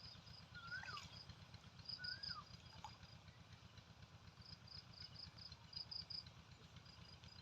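Faint birdsong: a whistled note that rises and then drops, heard twice in the first few seconds, with short runs of high, rapid chirping that come and go throughout, over a low steady rumble.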